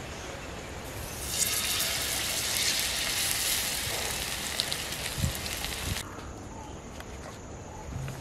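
A whole spice-coated fish sizzling loudly as it is lowered into hot oil, the sizzle starting about a second in and cutting off suddenly about six seconds in.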